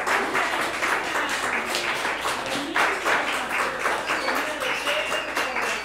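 Audience applauding, with quick overlapping claps and scattered voices mixed in.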